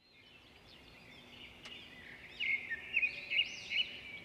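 Birds chirping and whistling in short, arching notes, several calls overlapping; the sound fades in and grows louder about halfway through.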